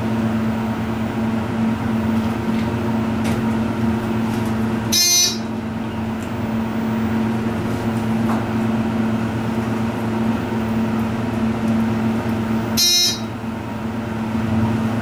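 Hydraulic elevator car travelling down, heard from inside the car as a steady low hum. Two short electronic chime tones sound about five and thirteen seconds in, as the car reaches floors.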